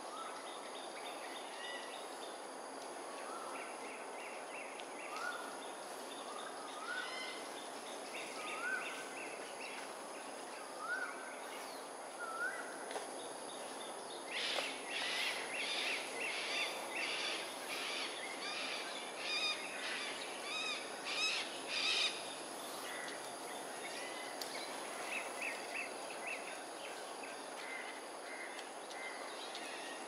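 Birds calling from a roosting flock: a short rising whistled note repeats about every one and a half seconds, then from about halfway a burst of loud, harsh, rapid calls from several birds, over a steady high-pitched hiss.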